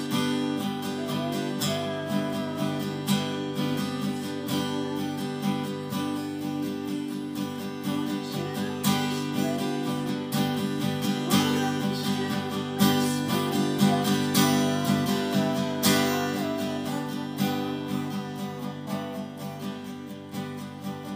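Acoustic guitar strummed steadily in an instrumental passage, the chords ringing between strokes; the playing grows gradually quieter toward the end.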